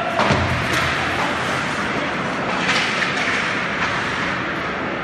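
Ice hockey play in a rink hall: a steady noisy wash of skates on the ice, with a heavy thud just after the start and sharper stick and puck knocks near three seconds in.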